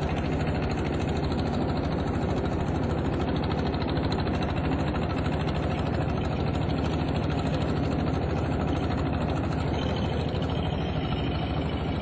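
Engine of a long wooden river boat running steadily under way, a constant low drone.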